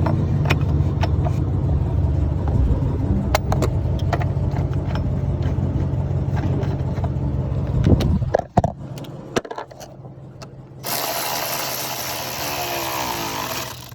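A vehicle engine idling with a steady low hum, over sharp metallic clicks and knocks as a battery hold-down is fitted and tightened. The engine hum cuts out about eight and a half seconds in, and a steady hiss follows near the end.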